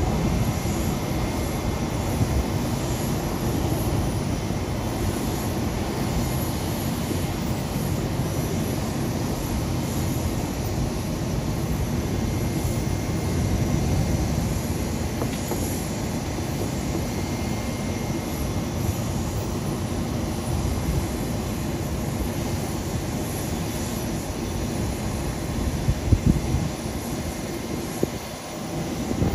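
Steady jet-engine noise from aircraft around an airport apron, with a faint high whine over it and a couple of sharp knocks near the end.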